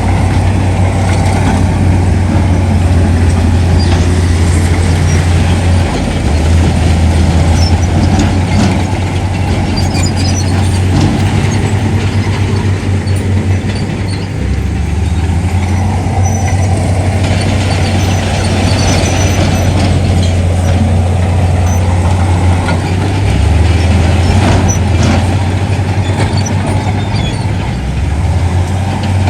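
Heavy diesel earthmoving machinery running loudly with a steady low engine drone that dips or shifts pitch a few times, under a wash of mechanical noise and scattered clanks.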